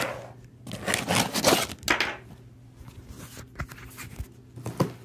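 Handling noise: a cardboard parcel and fleece clothing rubbing and scraping against the phone, with a few loud swishes about one to two seconds in, then light knocks and clicks.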